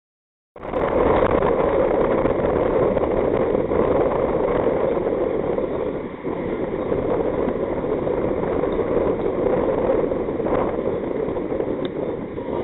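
Steady rushing noise from an outdoor microphone, cutting in abruptly about half a second in after silence.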